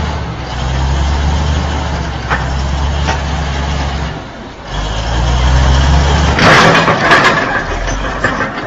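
A heavy vehicle's engine running with a steady low hum, dropping away briefly about four seconds in. A loud burst of rushing, hissing noise comes about six and a half seconds in and lasts about a second.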